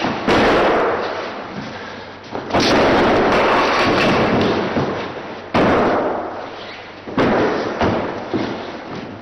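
Heavy thuds of bodies being thrown down onto a gym floor during grappling throws and falls. There are five, each hitting suddenly and fading out in the hall's echo.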